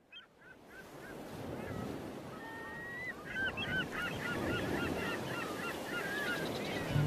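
A flock of geese honking, many short calls overlapping several times a second over a steady rushing background that fades in during the first second.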